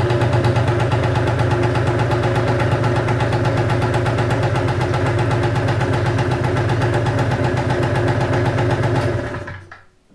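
A 2014 Gilera Runner SP 50 scooter's single-cylinder two-stroke engine idles steadily with a rapid, even popping beat. About nine seconds in it is switched off with the key and dies away quickly.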